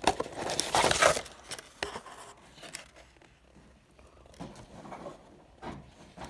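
Crinkling and rustling of a plastic blister pack on a card backing as it is handled. It is loudest for about the first second, then comes as a few quieter scattered rustles.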